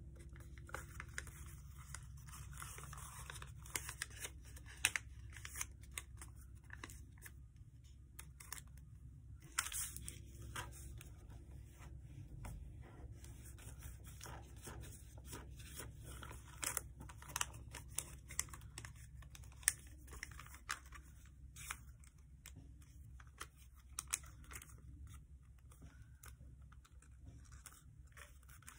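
Paper being folded and creased by hand: irregular crinkles and sharp crackles, over a low steady hum.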